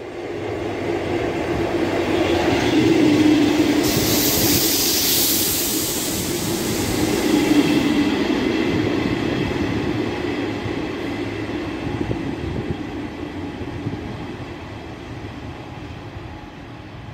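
ScotRail Class 158 diesel multiple unit running in along the platform. Its rumble builds over the first few seconds, with a burst of hiss about four seconds in, then slowly fades as it moves on.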